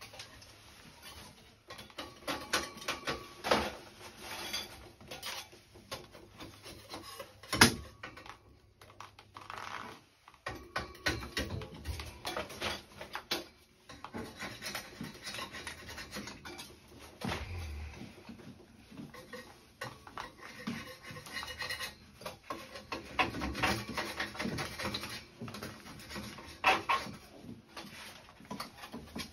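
Hand tools scraping, rubbing and knocking against a tiled wall and a shower mixer valve in irregular spells, with one sharp knock about a quarter of the way in.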